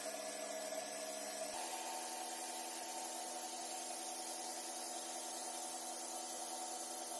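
A small electric motor running steadily, with abrasive rubbing over it, like a power tool sanding or wire-brushing a part. About a second and a half in, the tone jumps abruptly to a different steady pitch.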